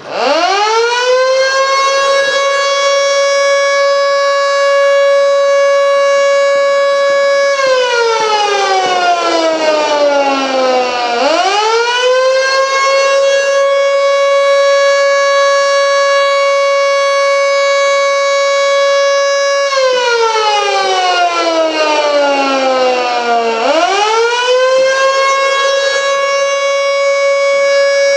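1950s Federal Sign and Signal Model 2 air raid siren winding up from a standstill to a steady, loud single tone. Twice its pitch falls away as it winds down, then climbs back to full tone as it winds up again.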